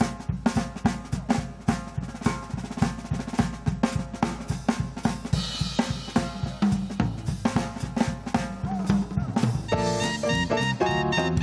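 A Spaun drum kit is played fast and busy in a live jazz-fusion band, with quick snare and bass drum strokes and cymbal hits over an electric bass line. Near the end the rapid drumming thins out and held, pitched melody notes from the band come in.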